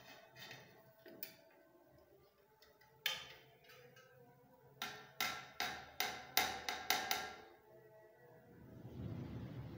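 Needle-nose pliers clicking and clinking against a thin steel blade and the plate it is soaking in, as the blade is prised up out of the liquid. A few scattered clicks come first, then a quick run of about eight sharp, ringing clinks, and a low rustle near the end.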